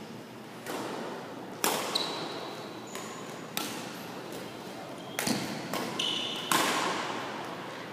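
Badminton rally: rackets striking the shuttlecock, about nine sharp hits half a second to a second apart, each echoing in the hall, the loudest about six and a half seconds in. Short high squeaks of shoes on the court floor come with some of the hits.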